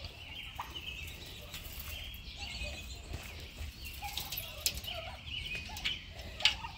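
Young domestic turkeys giving short, faint chirps and peeps scattered throughout, with a few light clicks near the end.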